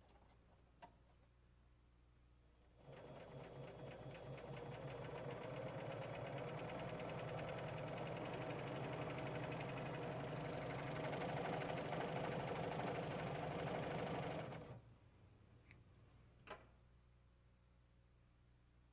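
Husqvarna Huskylock 936 serger sewing a five-thread overlock seam, running fast and evenly for about twelve seconds, growing louder over its first few seconds, then stopping. A couple of light clicks follow.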